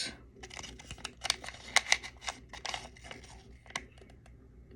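Small crinkly plastic wrapper being torn open and handled by hand, with a rapid, uneven run of sharp crackles and rustles that thins out in the second half.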